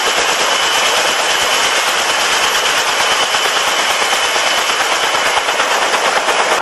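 Kaman K-1200 K-MAX helicopter running on the ground, its intermeshing twin rotors making a rapid, steady chopping beat over the noise of its turbine.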